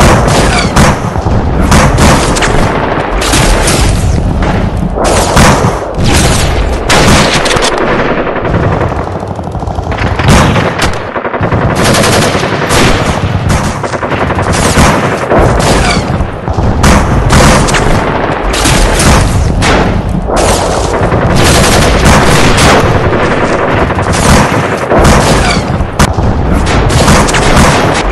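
Sustained battle gunfire: rapid shots overlapping almost without a break, with a brief thinning about eight to ten seconds in.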